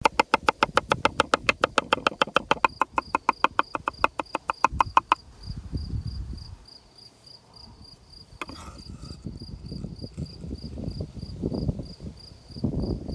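Knife rapidly chopping garlic on a cutting board, about eight even strokes a second, stopping about five seconds in; softer low handling and scraping sounds follow. Crickets chirp steadily throughout.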